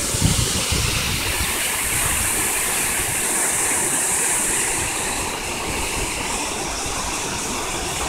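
Steady rushing of a tall waterfall plunging down a rock face into a pool.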